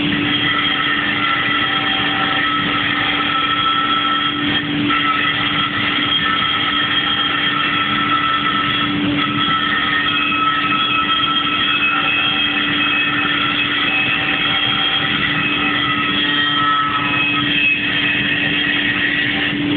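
Power grinder running without a break, its disc grinding metal with a steady hum and a continuous high-pitched squeal.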